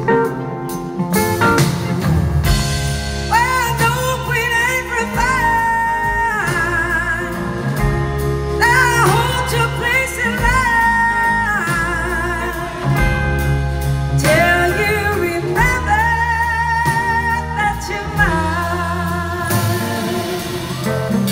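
Live band playing a slow soul-blues ballad: a woman singing lead over electric guitar, bass and drums, with long held notes that slide up into pitch and waver with vibrato, recorded from the audience.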